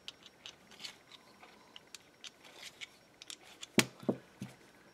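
Small brass bearing bosses being deburred by hand with a deburring tool: faint, scattered scraping and ticking of the blade on the brass. A single sharp click about four seconds in, followed by two softer ones.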